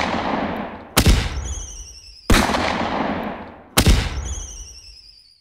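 Firework bangs, added as a sound effect: the tail of one bang opens, then three more sharp bangs follow about a second, two and a quarter, and nearly four seconds in, each dying away over a second or so. The first and last new bangs are each followed by a high whistle that falls slightly in pitch.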